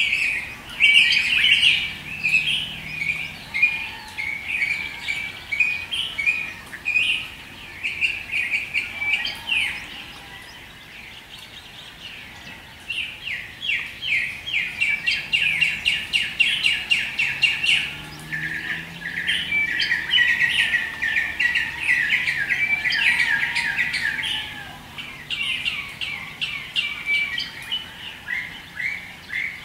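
Birds chirping and trilling in a dawn chorus, a dense stream of quick high notes that thins out briefly about ten seconds in before picking up again.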